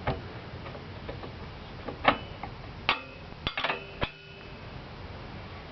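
Steel wrenches clinking against the nuts and all-thread of a home-made headset press: a few sharp metallic clinks with brief ringing, about two seconds in, at three seconds, and a quick cluster near four seconds.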